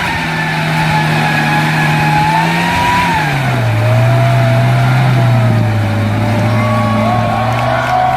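A vehicle engine running steadily under load, its pitch dropping about three seconds in and then holding.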